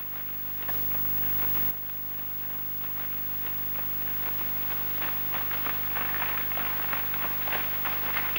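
Many feet shuffling and tramping on a wooden stage floor, an irregular patter that grows denser and louder from about three seconds in, over a steady low hum from an old film soundtrack.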